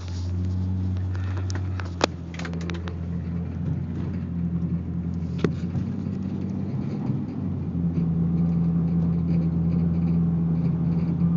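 A steady low engine hum, with several sharp clicks about two seconds in and one more a few seconds later.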